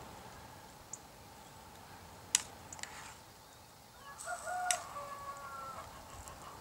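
A utensil clinking and scraping in a Trangia pan as corned beef hash is scooped out into a bowl, with a sharp clink about two and a half seconds in. Around four to five seconds in, a short, even-pitched animal or bird call sounds.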